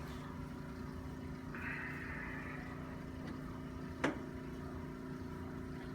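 Steady low room hum with a soft hiss for about a second, then one sharp click about four seconds in.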